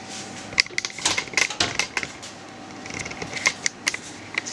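A run of sharp, irregular clicks and knocks as a metal loaf tin is set down on a wooden cutting board and the oven door is shut.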